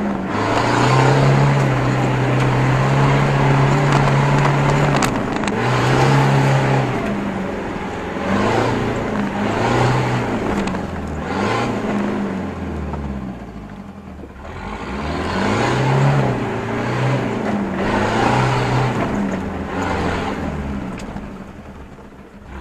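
Land Rover Discovery 200Tdi's 2.5-litre four-cylinder turbodiesel driving along a rough dirt track, its revs held and then rising and falling again and again with the throttle. It fades somewhat near the end.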